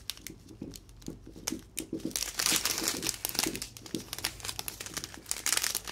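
Small plastic bags of round diamond-painting drills crinkling as they are handled and turned over, in an irregular crackle that gets busier about two seconds in.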